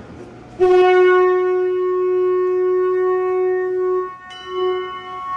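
Saxophone playing one long, steady held note that starts about half a second in, then shorter notes at the same pitch after a brief break near the end.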